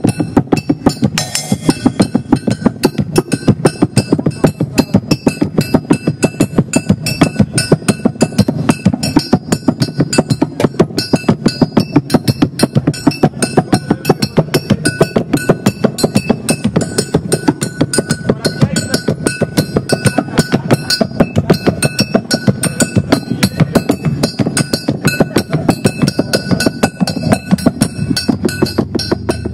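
Percussive music: a fast, even beat of sharp, knocking strikes that keeps up without a break, with a few faint steady tones above it.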